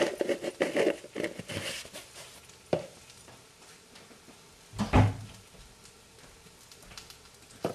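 Kitchen handling noises: scattered clicks and knocks of utensils and dishes, with a dull thump about five seconds in.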